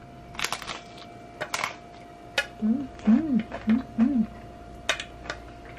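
Crisp crunches of a fried corn tostada being bitten, about half a second and a second and a half in, then a run of short closed-mouth 'mm' hums of enjoyment that rise and fall in pitch.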